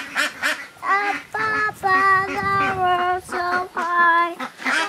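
A child singing a tune in a string of held notes at a few different pitches, without clear words.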